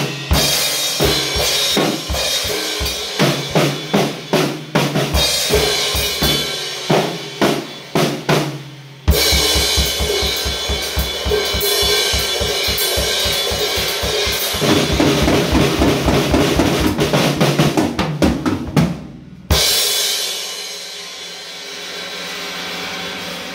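Drum kit played solo, with bass drum, snare and Paiste cymbals: separate strokes at first, then a fast, dense run of strokes from about nine seconds in. Near the end the drumming stops and a single crash is left to ring out and slowly fade.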